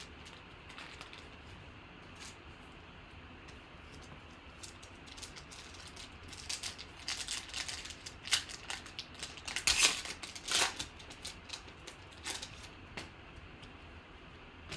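Hands tearing open and crinkling the foil wrapper of a 2018 Panini Contenders football card pack: a run of sharp crackles and rips starting about five seconds in, loudest around ten seconds, then a few lighter clicks as the cards are handled.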